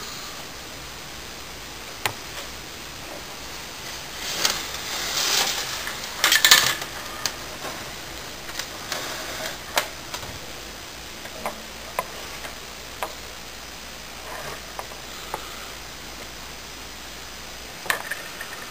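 Corn snake striking and coiling around a live mouse, scuffling and knocking against the plastic enclosure floor: scattered light knocks, with a louder scraping burst about four to seven seconds in. A faint steady hum runs underneath and stops near the end.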